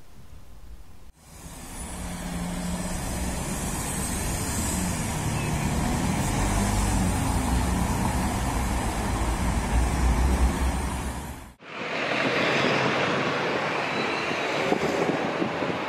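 City road traffic: a steady rumble of car engines and tyres, starting abruptly about a second in and growing heavier toward the middle. About eleven and a half seconds in it cuts off sharply to a different, hissier street ambience.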